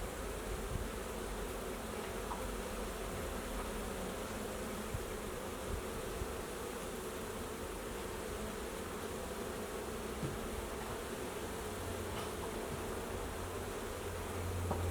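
A swarm of honeybees buzzing steadily in a dense, unbroken hum at a Flow hive.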